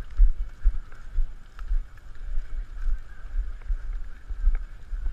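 Muffled thumps of a runner's footfalls and body movement picked up by a body-worn action camera, about two a second, over a steady faint hiss.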